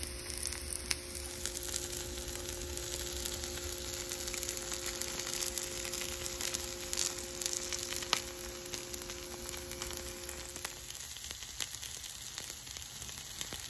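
Quesabirria tacos frying in a cast-iron skillet: fat sizzling steadily, with many small crackles and pops.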